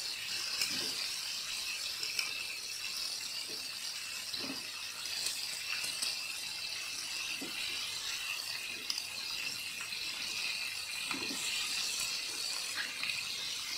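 Flour-coated chicken pieces deep-frying in plenty of hot oil in a wok, with a steady high sizzle. A few knocks of the tongs against the pan come through it as the pieces are moved.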